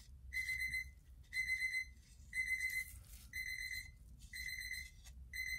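Electronic alarm beeping steadily, one long single-pitched beep about every second.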